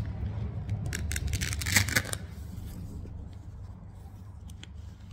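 Velcro closure on the front of a cardboard box being pulled apart, a short rasping rip about two seconds in, among small clicks and rustles as the box lid is opened. A low steady hum lies underneath.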